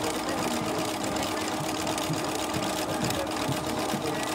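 Bernina B 335 electric sewing machine stitching a seam: a steady motor hum with the rapid ticking of the needle and feed running evenly throughout.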